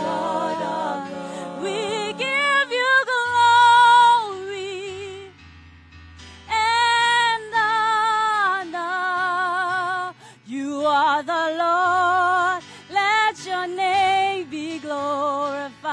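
Gospel praise team singing a worship song, a woman's voice leading with wavering, drawn-out phrases over held low instrumental notes. The singing drops away briefly about five seconds in, then resumes.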